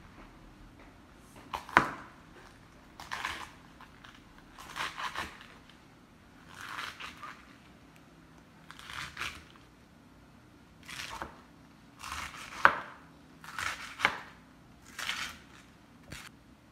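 A kitchen knife slicing through a wedge of raw cabbage on a wooden cutting board. There are about ten cutting strokes, one every second or two, and a few end in a sharp knock of the blade against the board.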